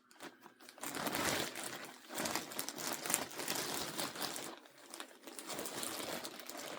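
A bag crinkling and rustling in irregular bursts as it is handled and rummaged through.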